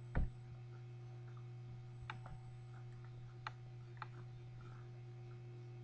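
A steady low hum with a dull thump just after the start and a few faint, sharp clicks about two, three and a half, and four seconds in.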